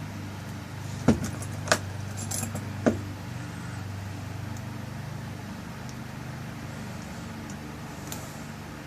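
Metal lock parts clicking and clinking as the tail piece is fitted and screwed onto the back of a rekeyed lock cylinder: four sharp clicks in the first three seconds, then only a steady low hum.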